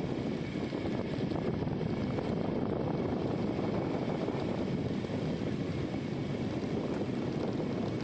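Steady riding noise from a motorbike on the move: a low engine and road drone blended with wind rushing over the microphone, unchanging throughout.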